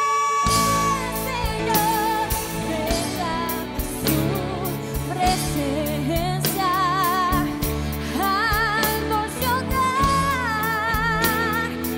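A woman singing a Christian worship ballad with marked vibrato over full musical accompaniment. The accompaniment, with drum hits, comes in strongly about half a second in, as she ends a long held note.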